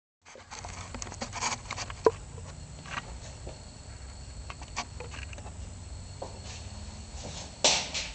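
Handling noise and footsteps: scattered clicks, knocks and shuffles as the camera is set down and a person walks across a concrete garage floor, over a faint low steady hum, with a sharp click about two seconds in and a louder knock near the end. The car's engine is not running yet.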